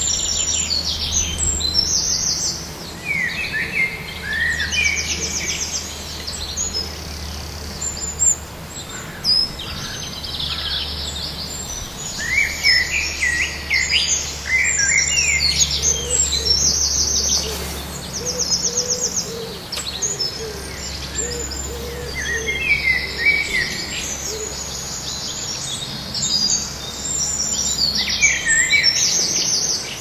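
Several songbirds singing over one another in short phrases of chirps and fast trills, with a lower call repeated in the middle. A steady low rumble runs beneath.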